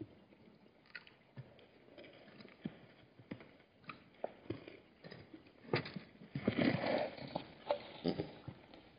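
Hartmann's mountain zebras moving and drinking at a waterhole: irregular soft clicks and knocks, with a louder, denser rustling burst about six and a half seconds in.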